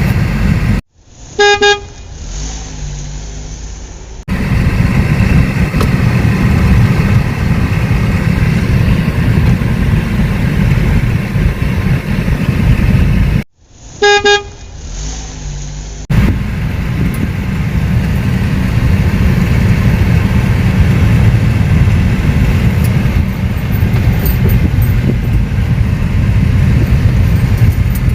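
Car horn giving a short single honk, about half a second, twice, roughly 13 seconds apart, each coming in abruptly. Between the honks, a loud low vehicle rumble runs steadily.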